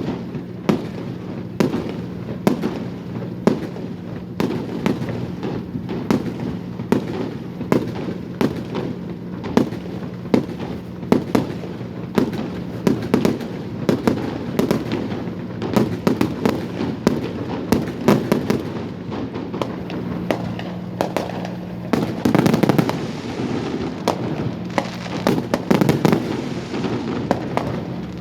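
Fireworks display: a rapid, irregular string of bangs and crackles, thickening into denser volleys about 22 seconds in and again a few seconds later, over a steady low hum.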